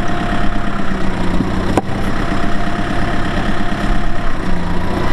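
Tractor diesel engine running steadily at idle, its pitch shifting slightly twice, with one sharp click about two seconds in.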